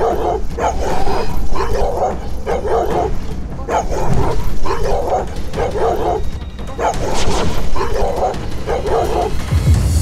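A leashed dog barking over and over in an even rhythm, about one and a half barks a second, as it lunges at people.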